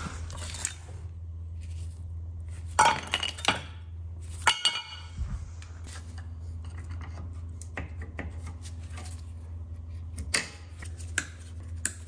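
Metal hand tools and car parts clinking and knocking in scattered clusters during brake work, one clank about four and a half seconds in ringing briefly. A steady low hum runs underneath.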